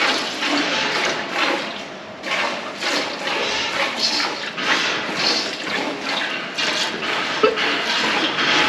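A cow being hand-milked: jets of milk squirting into a bucket, about two hissing spurts a second, with a brief lull about two seconds in.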